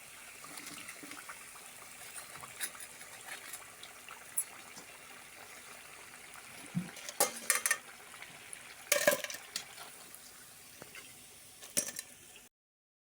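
Scattered light knocks and clinks of objects being handled, as of dishes or utensils, over a low steady hiss; the loudest clatter comes about nine seconds in.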